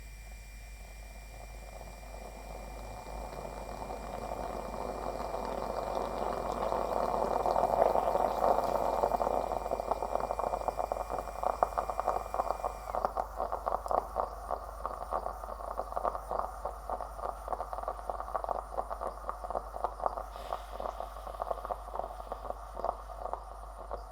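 Stovetop moka pot brewing: a hiss that swells over the first several seconds, then turns into rapid, irregular gurgling and sputtering as the coffee is forced up into the upper chamber.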